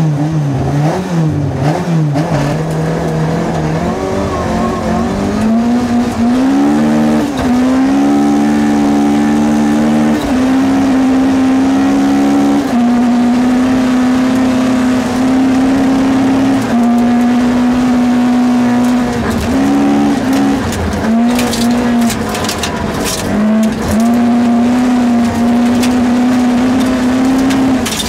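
Toyota Corolla 1600 GT rally car heard from inside the cabin: the engine is blipped at the start, then launches about four seconds in and climbs through several quick upshifts before being held at high revs with brief lifts. Near the end, gravel rattles against the body.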